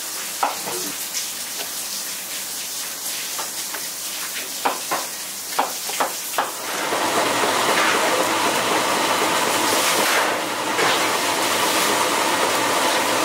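Wet, squelching hand-mixing of a thick kimchi batter in a large steel bowl, with a few sharp clicks. About seven seconds in, louder steady sizzling of kimchi pancakes frying in oil on a flat griddle takes over.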